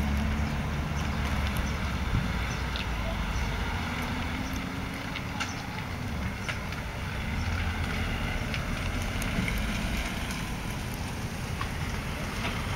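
Cats eating wet food from a plastic tray: faint scattered small clicks of chewing and licking over a steady low rumble.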